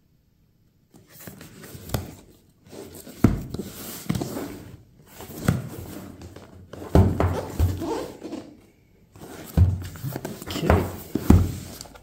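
Cardboard box of a car head unit being handled, turned over and set down on a wooden table: rustling and scraping with several dull thumps, starting about a second in.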